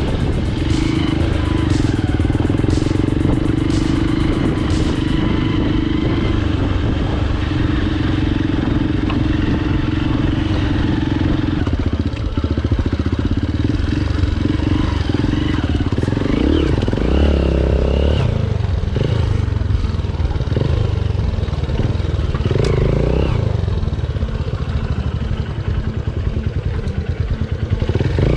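Hero Impulse's single-cylinder motorcycle engine running under way. Its note holds steady for about the first twelve seconds, then rises and falls repeatedly as the throttle is opened and closed.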